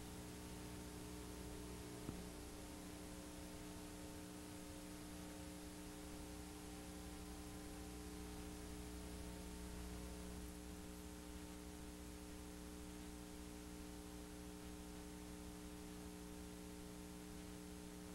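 Faint, steady electrical hum with hiss, made of several steady tones. A single small click comes about two seconds in.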